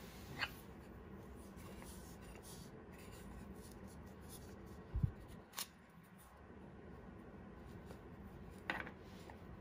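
Quiet handling of a camera lens and its mount adapter: a few faint clicks, and a soft low thump about five seconds in as the adapter comes off the lens, over steady faint hiss.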